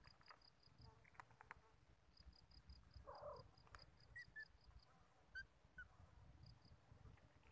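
Faint insect chirping in trains of short, evenly spaced high pulses, about five a second, stopping and starting. A cat crunches dry kibble in a few soft clicks during the first two seconds.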